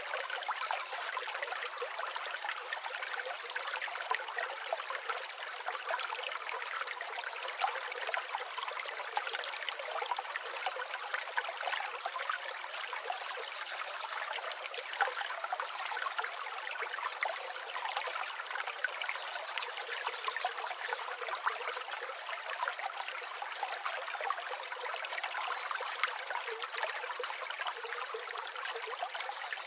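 River water flowing and babbling over stones in a steady, even rush, with no deep rumble underneath.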